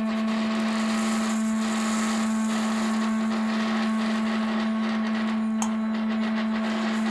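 Ambient drone music: one low note held steady, with fainter higher tones and a dense, grainy wash of noise layered over it.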